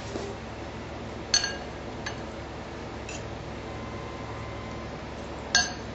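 China dish and glass mixing bowl clinking together as chicken pieces are tipped and scraped from the dish into the bowl. There are two sharp, ringing clinks, about a second and a half in and again near the end, with lighter taps between.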